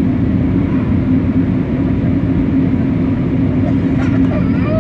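Airbus A320 jet engines and airflow heard inside the passenger cabin: a loud, steady low drone with a steady hum, as the airliner takes off and climbs. Faint voices come in near the end.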